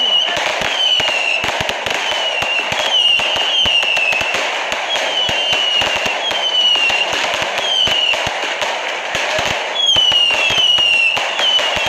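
Firework cakes firing a continuous barrage, with dense sharp cracks and pops of bursting shells. A short, high, falling whistle comes about once a second.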